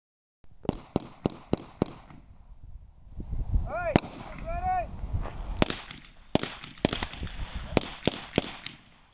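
Handgun shots in a drill: a fast string of five about a quarter-second apart, then a shout, then six more shots in uneven pairs and singles.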